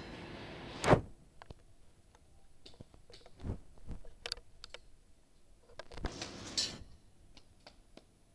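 Small dog's nails ticking and tapping on a tiled floor as it walks, scattered light ticks with a few duller bumps. A loud sharp thump about a second in, where a steady background hiss cuts off.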